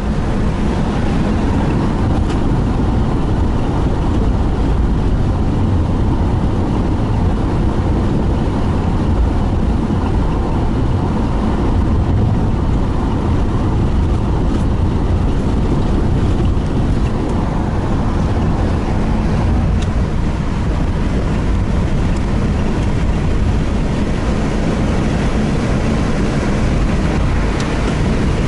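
A car driving at speed, heard from inside the cabin: a steady low rumble of road and engine noise with a rush of air over it.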